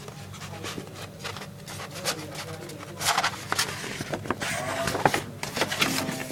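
Rustling and clicking of album packaging being handled, with irregular crinkles and taps that grow busier about halfway through, over a steady low hum.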